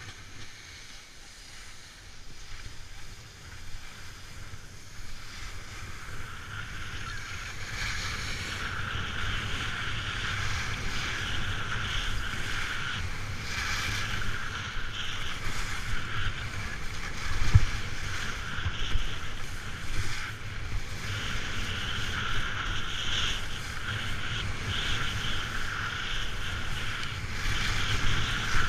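Wind buffeting the microphone with a low rumble, over the hiss of skis sliding and scraping on packed snow during a downhill run. The scraping hiss grows louder about six seconds in as speed picks up. A single sharp knock sounds about two-thirds of the way through.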